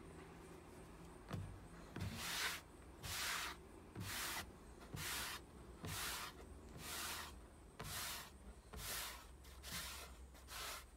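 Hand-sanding a bare wooden tabletop with a folded sheet of sandpaper: faint, scratchy strokes of paper on wood, about one a second, starting about two seconds in.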